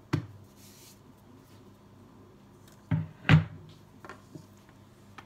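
Rolling pins knocking against a granite countertop as they are handled during dough rolling: one sharp knock just after the start, then two more close together about three seconds in, the second the loudest, followed by a few faint taps.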